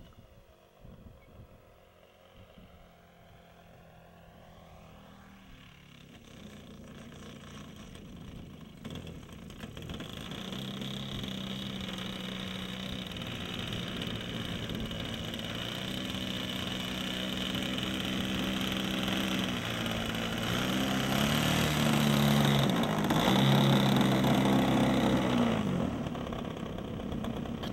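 Model aeroplane's OS 1.60 FX two-stroke glow engine, fitted with a Bisson Pitts muffler, running at low throttle as the plane lands and taxis in. It starts faint and grows steadily louder as it nears, with a few small steps up and down in engine pitch.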